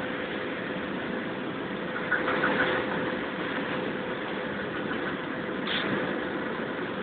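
Steady drone of cement plant machinery with one constant tone running through it. A few short clicks come about two seconds in.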